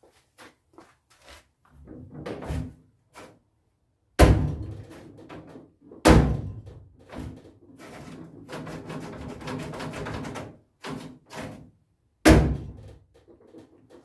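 Steel cab door of a 1961–63 VW single cab pickup swung shut three times, each a heavy thunk with a short ring, with lighter clicking and rattling from the door handle and latch mechanism between the second and third closings.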